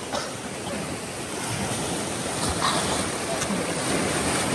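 Whitewater of a fast mountain stream rushing over rocks in a strong current: a steady rush of water that grows a little louder over the few seconds.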